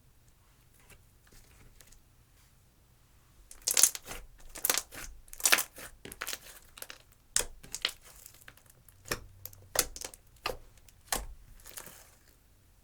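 Clear slime with eyeshadow mixed in being squeezed and pressed by hand. After a quiet start come about a dozen sharp, crackling squishes at uneven intervals.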